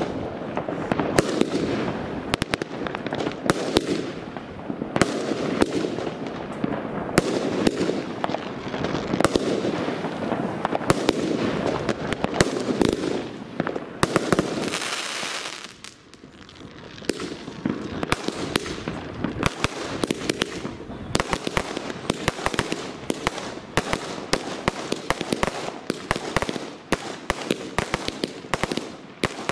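Aerial fireworks bursting overhead in rapid succession: a dense, continuous run of bangs and crackling. About halfway through there is a brief hissing rush and a moment's lull, then the rapid bangs pick up again.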